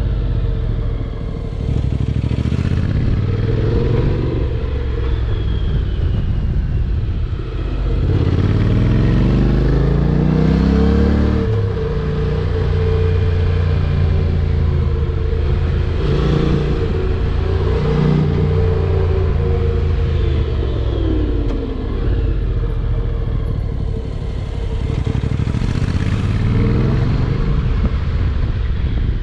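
Honda NC750X's parallel-twin engine running under way, its pitch rising and falling several times as the rider accelerates and eases off through the bends. A steady hum sits under it.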